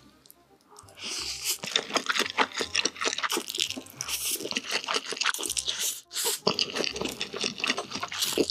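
Loud, crunchy chewing close to the microphone: dense rapid clicks and crackles. It starts about a second in and pauses briefly about six seconds in.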